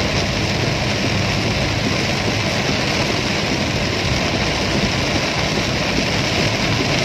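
Heavy rain on a moving car, heard from inside the cabin: a steady rush of rain on the roof and windshield over the car's engine and road noise.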